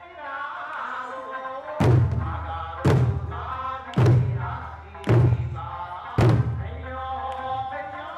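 Eisa drumming: large Okinawan barrel drums (ōdaiko) struck together, five strikes about a second apart starting about two seconds in. Under them runs a sung Okinawan folk song (minyō).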